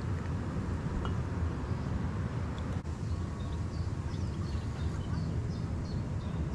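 Wind buffeting the microphone as a steady low rumble, with small birds chirping faintly from about halfway through.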